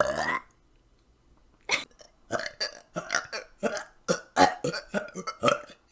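A woman burping: one short burp, then after a pause of over a second a rapid, irregular run of about a dozen short burps.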